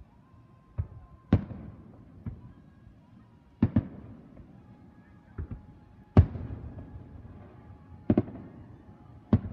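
Aerial fireworks shells bursting: a series of sharp booms, some in quick pairs, each trailing off in a short rumbling echo.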